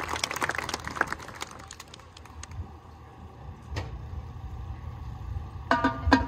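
Scattered applause from the stands dying away, leaving a low rumble and a single click. Near the end the front ensemble's marimbas begin playing a few pitched notes.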